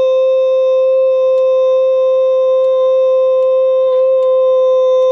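A man's voice holding one long, steady high note into a handheld microphone. It is a loud, unwavering tone with a row of overtones and no pitch change.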